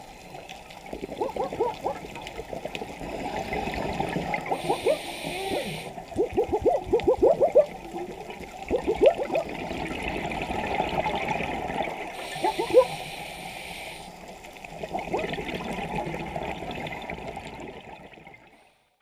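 Scuba diver breathing through a regulator underwater: a hiss on each inhale every several seconds, then bursts of bubbling, gurgling exhaust bubbles. The sound fades out near the end.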